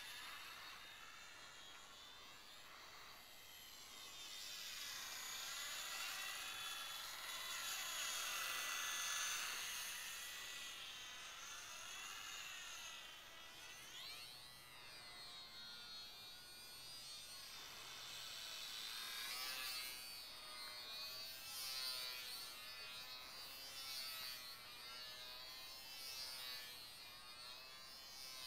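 Small electric motor and propeller of a HobbyZone Champ RC plane whining in flight, the pitch sweeping up and down as the plane changes throttle and passes overhead.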